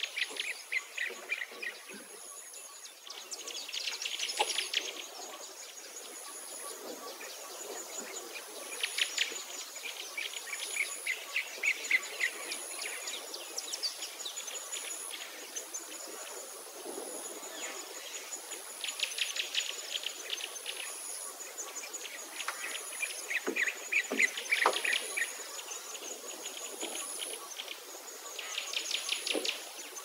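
Songbirds singing in bursts of rapid trills every few seconds, over a thin, very high note that repeats about every second and a half.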